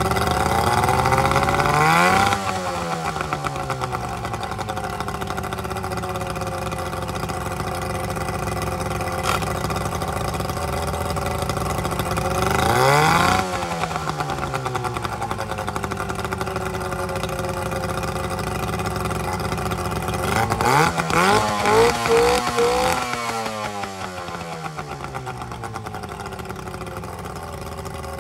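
Hangkai 12 hp two-stroke outboard motor running soon after its first start. It is revved up and let back down twice, then blipped several times in quick succession, and settles to a lower, quieter idle.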